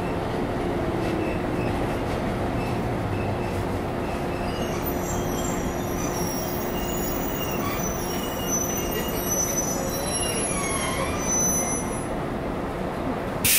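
JR 115-series electric multiple unit in motion, heard from on board: a steady rumble of wheels and running gear with a constant hum. Thin, high-pitched wheel squealing comes in about four seconds in and fades near the end. A sudden loud rushing noise breaks in right at the end.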